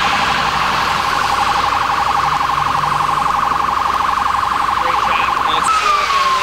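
Police car siren sounding a fast warble that switches, about five and a half seconds in, to a single tone sliding slowly downward.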